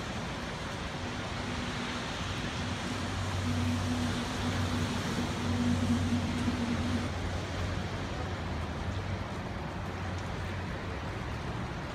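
Steady outdoor noise from a handheld recording, a rushing hiss with a low steady hum that swells from about two seconds in and fades out around seven seconds.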